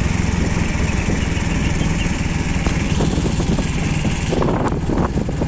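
Small motorcycle engine of a tricycle (motorcycle with sidecar) running steadily while riding along, with wind and road hiss. A little over four seconds in, the hiss eases and a few knocks and rattles come through.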